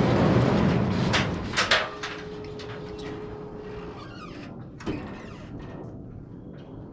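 Portable band sawmill machinery running loudly, dropping to a quieter level after about two seconds, with a few sharp metallic clanks and knocks.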